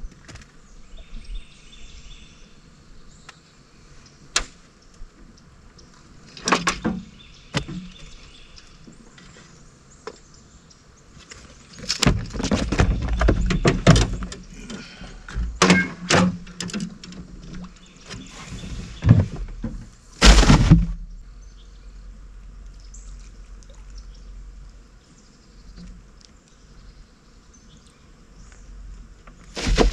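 Knocks, thuds and scraping of gear being handled inside a small flat-bottom fishing boat. It starts with a few sharp knocks, then a longer run of rattling and scraping about halfway through. The loudest is a heavy thump shortly after that, and it is quieter after the thump.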